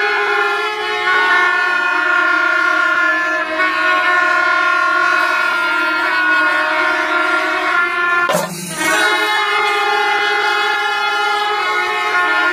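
Several kombu, the curved brass horns of a Kerala temple percussion ensemble, are blown together in long held notes. The sound breaks off briefly about eight seconds in, then starts again.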